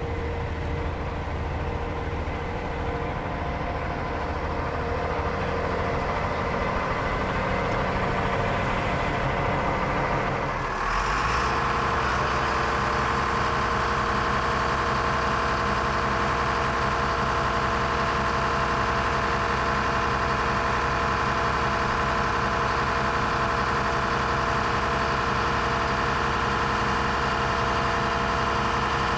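Heavy diesel engine idling steadily. About eleven seconds in the sound changes abruptly and becomes louder, then holds steady again.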